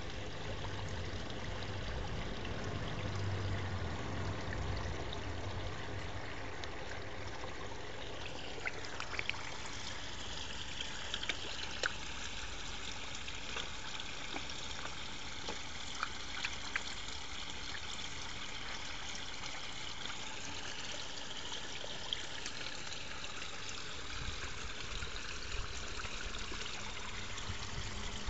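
Steady trickling of water running into a koi pond, with scattered small sharp clicks over the middle of the clip.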